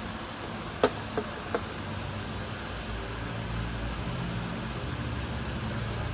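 Steady mechanical hum of a workshop, with three quick sharp clicks or knocks, about a third of a second apart, roughly a second in.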